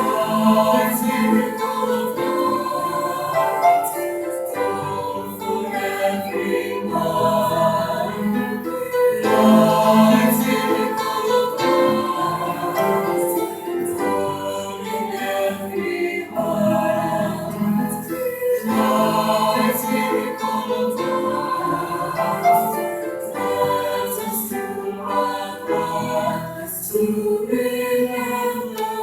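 School choir singing, many voices together in sustained, changing phrases.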